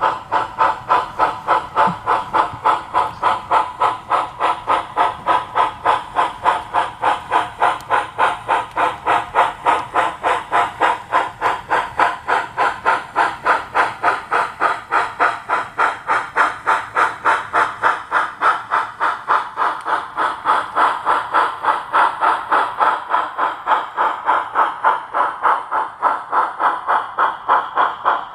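Model steam locomotive sound, a brass Erie L-1 0-8-8-0 camelback, chuffing at an even pace of about three to four chuffs a second as it departs, with a hiss over each chuff.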